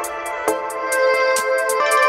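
Instrumental background music: sustained held notes over a steady, quick beat of about four light strokes a second.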